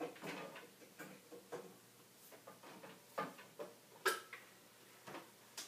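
Scattered light clicks and knocks of guitar cables and jack plugs being handled as a guitar rig is rewired to run through a reverb unit, the sharpest one about four seconds in.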